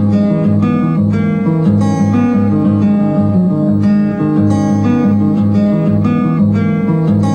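Acoustic guitar music, chords strummed in a steady rhythm of about three a second.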